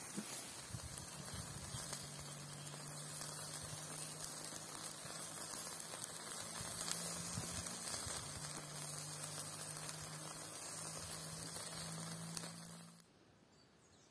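Aubergine and meat kebabs sizzling and crackling on skewers over charcoal embers: a steady hiss with scattered small pops, under a low steady hum. It stops abruptly about a second before the end.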